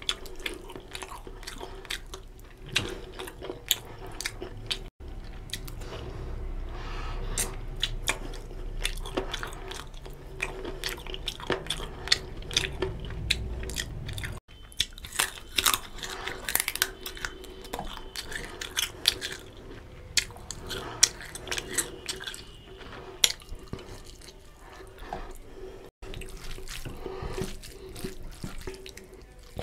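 Close-up wet chewing, biting and lip smacks of someone eating chicken curry and rice by hand, with squishy sounds of fingers working rice into the gravy. The sound drops out briefly three times.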